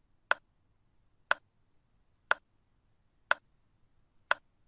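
Clock-tick sound effect of a countdown timer: one short sharp tick each second, five in all.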